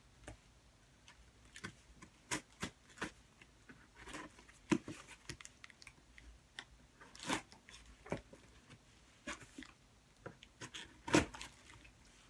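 Packing tape on a cardboard box being cut with scissors and the box flaps pulled open: scattered scraping, crackling and tearing noises with small clicks. The loudest crackle comes near the end as the flaps are opened.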